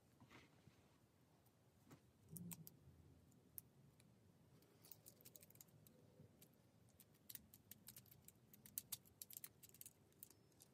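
Faint clicks and light rattles of plastic Lego Technic parts being handled and pressed together, with a duller thump about two and a half seconds in; the clicks come thicker in the second half.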